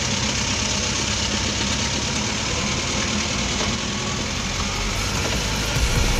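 Vehicle engine running steadily, with a low hum and a constant rushing noise.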